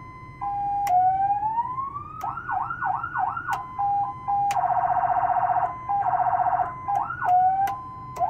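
A 200-watt electronic siren driving a Federal Signal speaker, switched quickly through its tones: a steady tone, a slow rising wail, fast yelp sweeps, a two-tone step, and a buzzy horn tone twice, with a sharp click at several of the changes. It is loud, heard from inside the truck cab.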